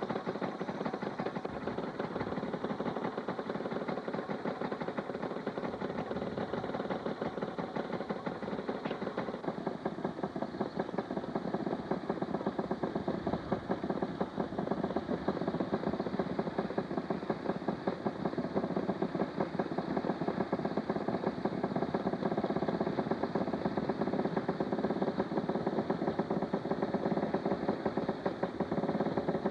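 Railroad motor cars' two-stroke gasoline engines idling, a fast, steady run of firing knocks.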